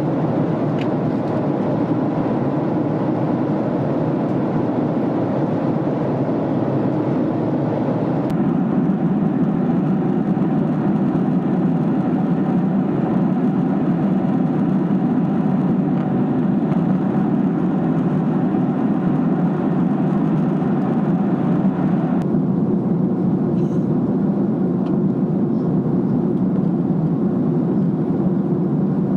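Steady cabin noise of a Boeing 767 airliner in flight: the low rumble of the engines and the rush of air over the fuselage. The upper hiss drops abruptly about 8 seconds in and again about 22 seconds in.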